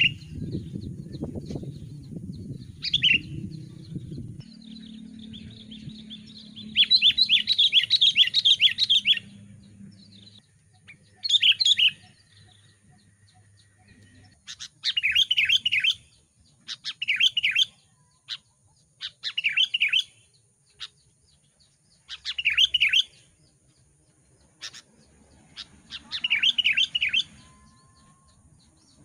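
Sooty-headed bulbul singing in short, bubbly phrases repeated every two or three seconds, with one longer run of song about seven seconds in. A low rumbling noise sits under the first few seconds.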